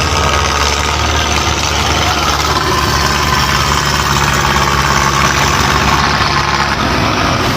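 Belarus tractor's diesel engine running steadily.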